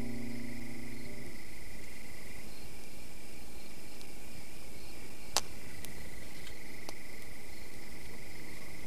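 A steady high-pitched insect trill, like crickets, with a held music chord ending about a second in and a single sharp click about five seconds in.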